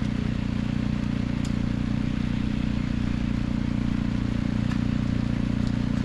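A small engine running steadily at an even speed, a low hum with a fast regular pulse, with a few faint ticks over it.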